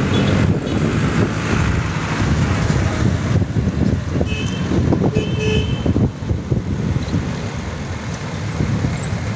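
Street traffic heard from a moving rider, with engines rumbling and wind rushing over the microphone. A few brief high-pitched tones sound about four to six seconds in.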